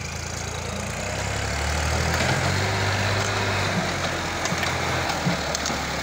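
Massey Ferguson 260 tractor's three-cylinder diesel engine running at low speed as the tractor pulls a loaded trolley closer, its steady low note growing louder over the first couple of seconds and then holding.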